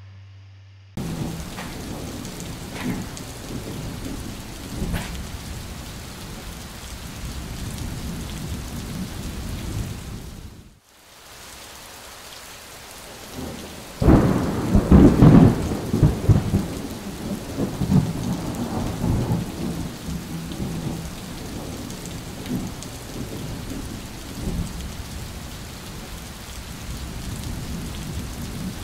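Steady rain with thunder; a loud roll of thunder rumbles about halfway through, and the sound drops out briefly a little before it.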